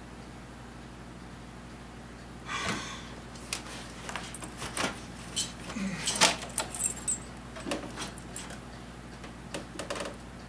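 Irregular clicks, rattles and knocks of hands and tools working loose parts of a vehicle's dashboard, starting about two and a half seconds in.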